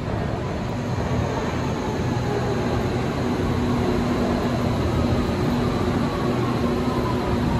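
Bangkok Yellow Line monorail train pulling into an elevated station and slowing along the platform. Its electric drive gives a steady hum of a few tones over a rumble of its rubber tyres on the guideway.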